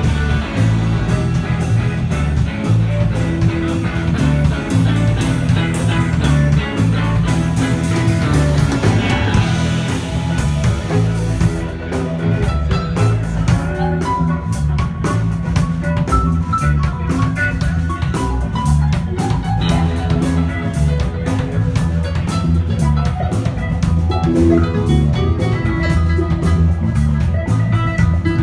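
Live band playing rock music: guitar over a steady drum-kit beat.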